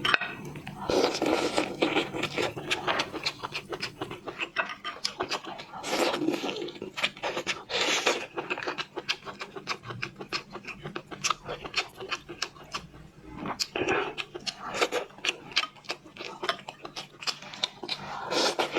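Brown crab shell being broken apart and the meat picked out by hand: a dense run of small clicks, cracks and scraping, with a few brief louder rustles.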